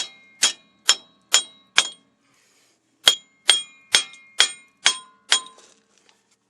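Hammer blows on steel ringing out, about two a second: a run of five, a pause of about a second, then six more. The strikes are driving a stuck part loose on a Jeep Cherokee's front axle.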